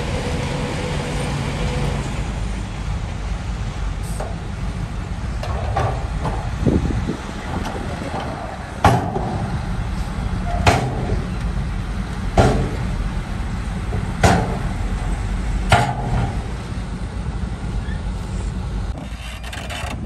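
Heavy diesel earthmoving machinery running steadily under load, with five sharp metallic clanks a little under two seconds apart in the second half.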